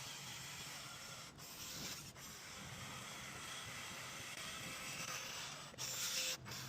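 Steady rubbing noise, with a louder, brief scraping rub near the end.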